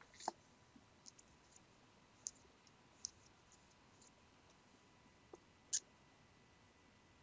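Near silence with a few faint, sharp clicks scattered through it, the loudest near the start and just before six seconds in.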